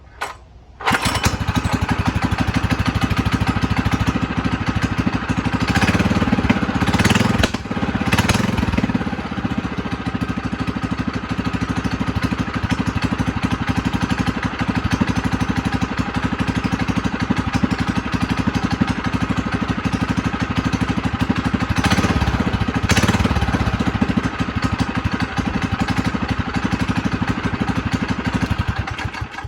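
Predator 212 single-cylinder four-stroke engine on a minibike kick-started with a DirtSlinger kickstarter: it fires and catches about a second in, then runs steadily. The engine speed surges briefly a few times, around six to eight seconds in and again past twenty seconds.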